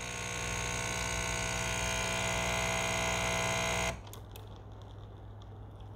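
Capsule coffee machine's pump buzzing steadily as it brews coffee into a glass. The buzz cuts off suddenly about four seconds in as the brew ends, leaving a faint low hum.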